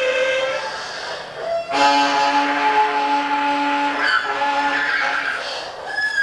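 Experimental improvised ensemble music made of long held pitched notes. One note fades out in the first second, a new lower note enters about two seconds in and holds for about two seconds, and a higher note sounds near the end.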